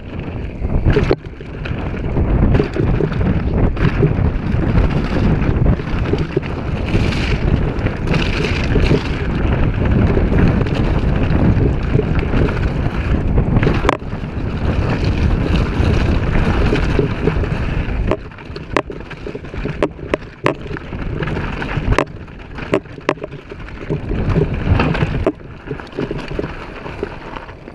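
Wind buffeting the microphone and tyres rolling over a dirt and gravel trail on a fast mountain-bike descent, with many sharp knocks and rattles from the bike over bumps. The rumble of wind eases after about eighteen seconds, leaving the rattles and knocks more distinct.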